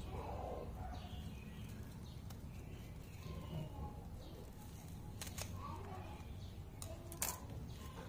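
Kitchen shears snipping through green onion shoots: a few sharp clicks, the two loudest in the second half, over faint bird calls.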